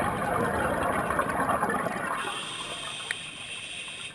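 Scuba regulator exhaust bubbles from the filming diver's exhalation, heard underwater through the camera housing: one long rush of bubbles that eases off near the end.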